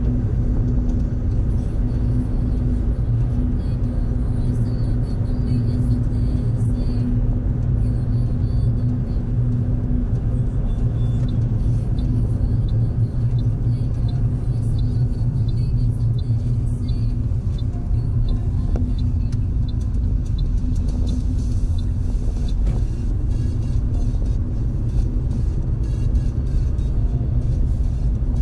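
Steady road and engine rumble inside a moving car's cabin, cruising at a constant speed.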